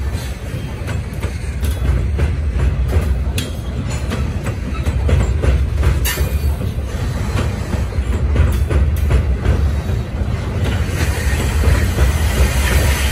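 Covered hopper cars of a grain train rolling past close by across a steel truss bridge: a steady low rumble with irregular sharp clacks of wheels over rail joints.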